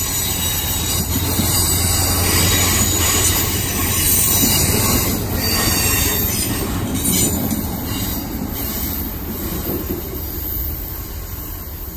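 Amtrak passenger train of double-deck Superliner cars rolling slowly past, its steel wheels squealing on the rails with a continuous high-pitched squeal over a low rumble, fading a little toward the end as the last car moves away.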